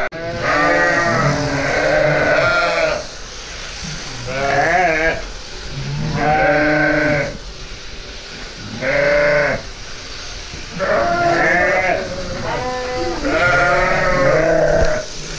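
Sheep (ewes) bleating repeatedly: about eight long, wavering bleats from several animals, with short gaps between them.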